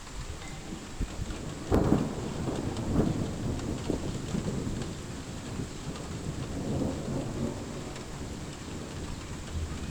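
Thunder rumbling over steady rain, with the strongest roll about two seconds in and smaller rumbles after it.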